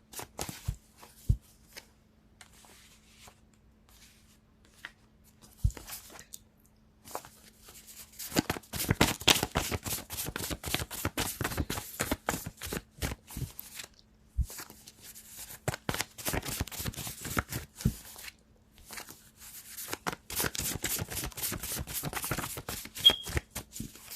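A deck of oracle cards being shuffled by hand, with a few soft taps at first, then a dense run of quick riffling and flicking through most of the second half. A faint steady hum sits underneath.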